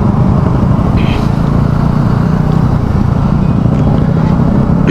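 KTM Duke 200's liquid-cooled single-cylinder engine running steadily while riding, with the radiator cooling fan running because the engine has heated up.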